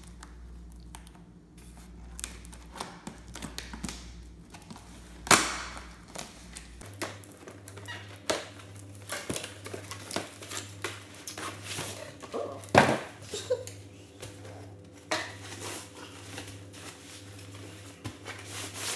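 A cardboard box being opened by hand and a plastic-wrapped sleeping bag pulled out: scattered rustles, crinkles and knocks of cardboard flaps and wrapping, with two loud thunks, about five seconds in and again near thirteen seconds.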